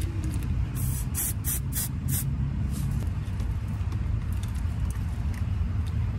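Steady low hum of a car engine idling, heard inside the cabin, with a few brief hissing rustles about one to two seconds in.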